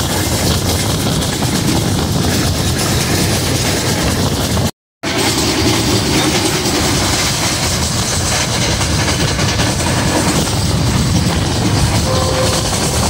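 Subak Raftar Express passenger train running at speed, heard from an open window and door of a carriage: a loud, steady rush of wheel-and-rail noise and passing air, with the clickety-clack of the wheels over the track. The sound cuts out completely for a moment about five seconds in.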